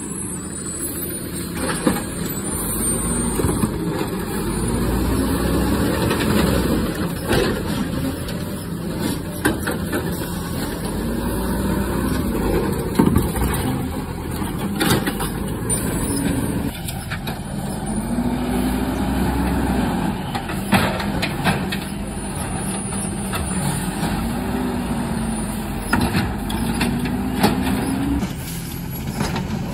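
Garbage truck engine revving up and down several times over its running sound, with scattered sharp knocks and bangs.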